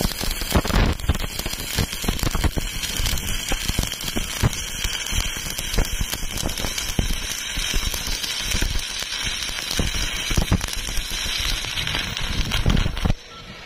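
Stick (shielded metal arc) welding: the electrode's arc crackling steadily in a dense run of irregular clicks as it lays a weld joining a round steel tube to a steel plate. It cuts off abruptly near the end as the arc is broken.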